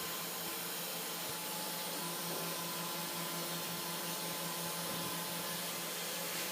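Spindle motor of a mini CNC router running steadily: a continuous even whirring hiss with a faint constant hum under it.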